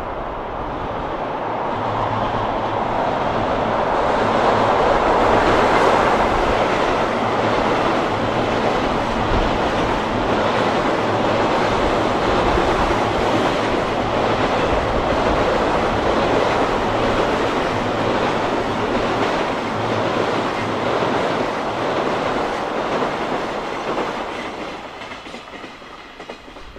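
Fast JR Freight container train passing over a steel girder railway bridge: a steady loud rumble with the clickety-clack of the wagons' wheels over the rail joints. It grows louder over the first few seconds and fades near the end as the last wagons go by.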